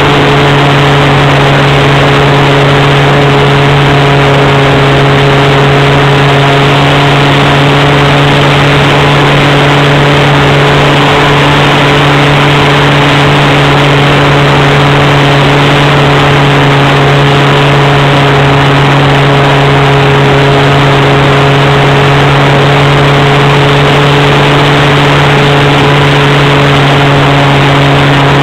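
A Swift 40 RC plane's .46 nitro glow engine running at a steady high speed in flight, heard from an on-board wing camera. Its drone holds one steady pitch over a loud, constant rush of air over the microphone.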